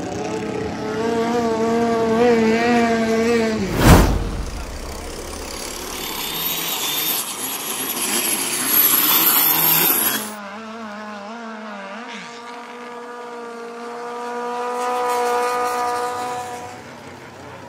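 Thai longtail racing boat engines. A wavering engine note is broken by a sudden loud bang. Then a turbocharged longtail engine runs flat out for about six seconds with a high whine over the noise, and cuts off abruptly to a steadier, lower engine note that swells and fades near the end.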